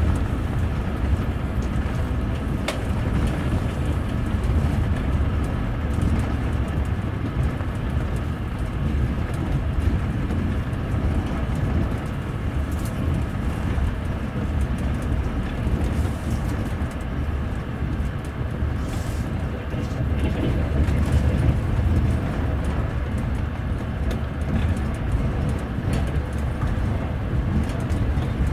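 Steady rumble of a double-decker passenger coach running along the line, heard from inside its upper deck: wheels rolling on the rails, with a few faint clicks.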